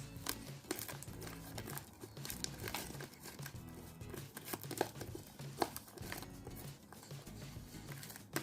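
Slime being squeezed and stretched by hand, making sticky clicking and crackling sounds, over background music.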